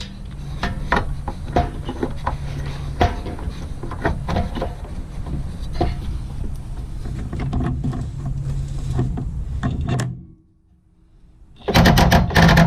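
Cordless DeWalt impact wrench hammering on a wobble extension, trying to break loose a 1-1/8 inch strut rod nut: a steady motor hum with rapid rattling impacts. It stops about ten seconds in, then starts again louder near the end.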